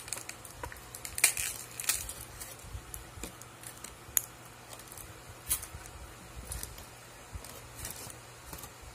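Aluminium foil wrapping crinkling and crackling in irregular bursts as it is handled, with a few sharp clicks, the sharpest about four seconds in. A faint steady low hum runs underneath.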